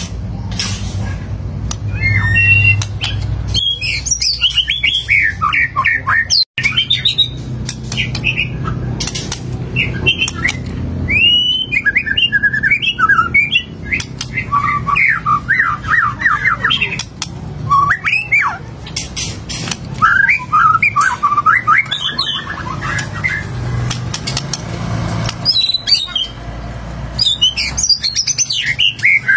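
White-rumped shama singing non-stop: rapid, varied phrases of whistles, slurred notes and chatters. There is a very brief break about six and a half seconds in.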